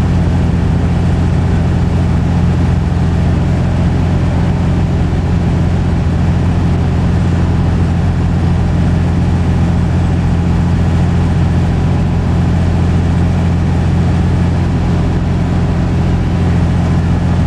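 An engine idling steadily with a constant low hum that does not change in pitch or loudness.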